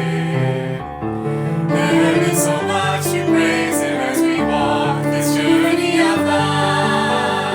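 Christian song: singing over instrumental accompaniment, steady and full.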